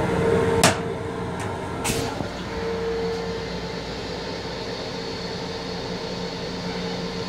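Toilet flush in a Long Island Rail Road M7 railcar restroom ending: rinse water rushes around the stainless steel bowl and cuts off with a sharp clack under a second in, and a lighter click follows about a second later. After that the railcar's steady hum goes on.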